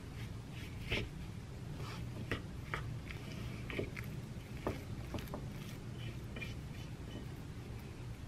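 Wooden spoon stirring moistened rolled oats in a ceramic bowl: soft scraping with a handful of sharp clicks of the spoon against the bowl, over a low steady hum.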